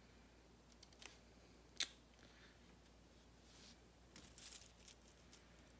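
Near silence broken by faint clicks and small cracks of fingers handling a dried beetle's hard shell and wing cases: one sharper click about two seconds in, and a cluster of soft ticks near the end.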